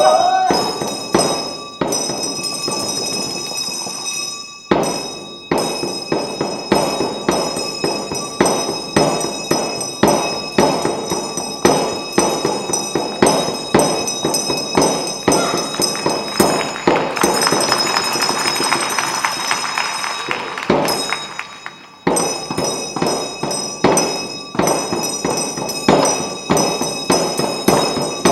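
Tibetan Reba dance music: rapid, rhythmic beats on long-handled hand drums struck with curved sticks, over a steady high ringing. About two-thirds of the way through, the beating thickens into a denser run, then breaks off for a moment before the rhythm resumes.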